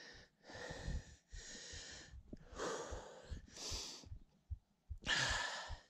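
A hiker breathing hard: about five heavy, noisy breaths roughly a second apart, winded after a steep climb.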